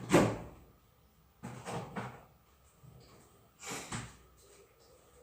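Three short knocks and rustles of objects being handled; the first is the loudest.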